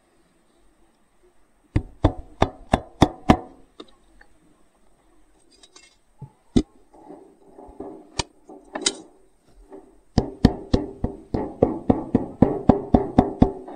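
Hammer striking the metal cap on the end of a pharsa's wooden handle, resting on a stone: a quick run of about six sharp, ringing strikes, a few scattered taps, then a fast steady run of three to four strikes a second near the end.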